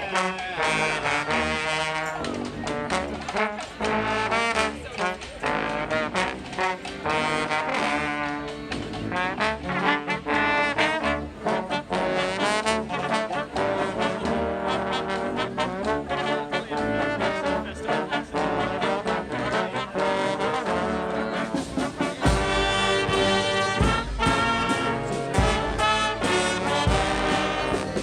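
A brass street band plays an upbeat tune, with trombones and trumpets over a steady beat. Near the end the band gets louder, with a heavy low end.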